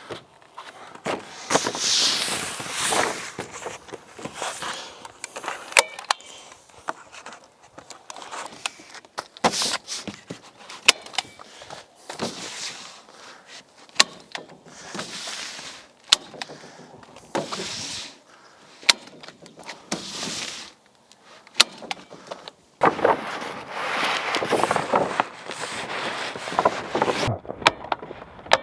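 Wind-barrier sheeting being handled and fitted over wall boards: irregular rustling bursts with sharp clicks and knocks scattered throughout.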